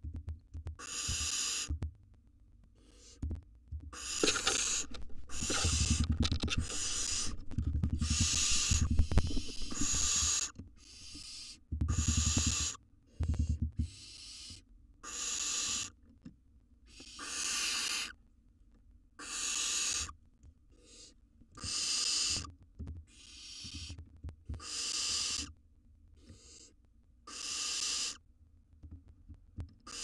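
Barn owl nestlings giving harsh, hissing begging calls, each about a second long and repeated every one to two seconds, with a few low thumps between them in the first half.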